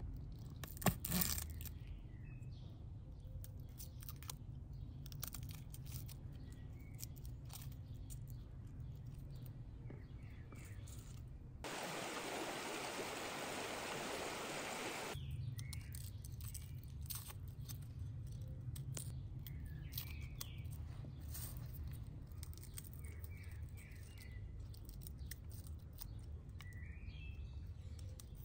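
Songbirds chirping, with small clicks and taps of a paring knife peeling and trimming garlic cloves and one sharper knock about a second in. From about 12 to 15 s this gives way to the even rush of a shallow stream running over rocks, which cuts off suddenly.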